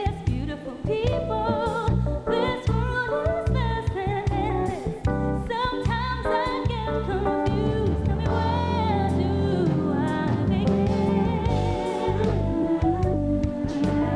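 A female R&B singer sings live with a band of drums, bass guitar and keyboards, holding notes with vibrato over a steady drum beat.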